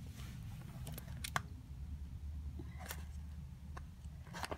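A few faint clicks and taps of handling over a low steady hum. Near the end a hand takes hold of a small plastic deli cup to work its snap-on lid.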